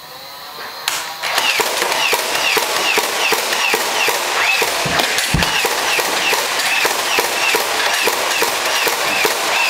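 Battery-powered Nerf Stampede blaster firing full-auto, a steady run of about three shots a second over the whir of its motor, starting about a second in. A single low thud comes about five seconds in.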